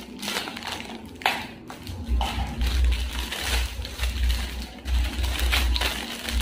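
Plastic packaging being handled: a clear plastic box opened with a few sharp clicks, then a thin plastic packet crinkling as it is worked open. A low rumbling handling noise comes in about two seconds in.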